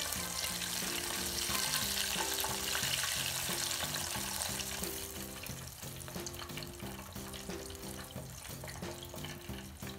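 Chicken pieces sizzling in hot oil in a small electric deep fryer. The sizzle fades after about five seconds, and background music with a steady melody plays throughout.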